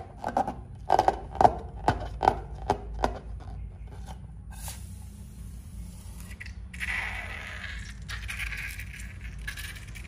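A slime-filled rubber balloon being handled, with a run of short sharp rubbing and squeaking noises in the first three seconds. From about seven seconds in, slime squelches out of the balloon's neck onto a plate of slime.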